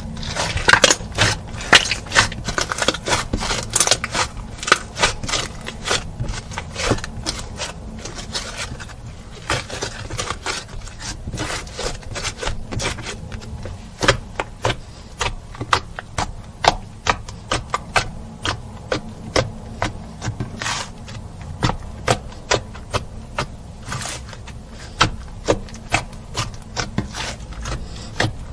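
Slime being kneaded and folded by hand, making a steady run of sticky clicks, crackles and pops, several a second.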